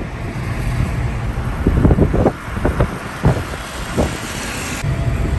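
Steady road and engine rumble of a moving car heard from inside the cabin, with a few short louder knocks in the middle.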